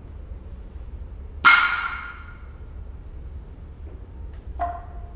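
A single sharp strike on a Noh tsuzumi hand drum about a second and a half in, with a bright ring that dies away over about a second. A shorter, quieter sound follows near the end.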